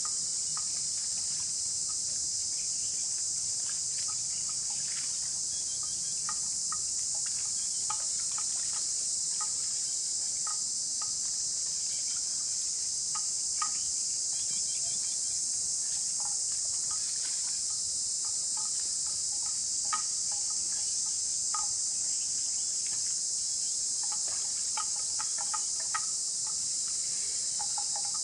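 Steady high-pitched drone of an insect chorus, with scattered short clicks and knocks throughout.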